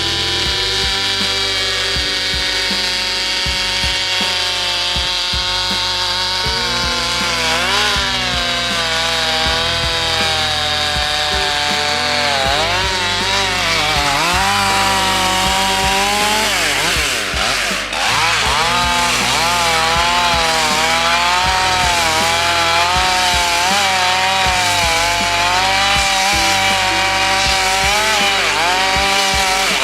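Powered saw cutting through timber: the motor runs continuously, its pitch dipping and recovering again and again under the load of the cut, the dips coming more often in the second half.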